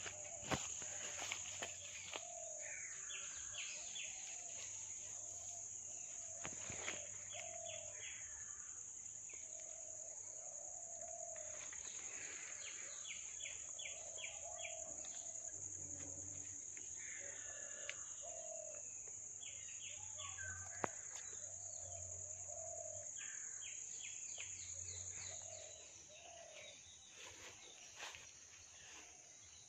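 Tropical garden ambience: a steady high-pitched insect drone, with birds calling over it again and again in short low notes and quick runs of higher notes. The insect drone drops away a few seconds before the end.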